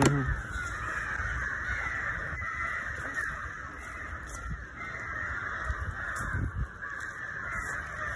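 A continuous chorus of many birds calling at once, overlapping harsh caws, with a few low thumps near the middle.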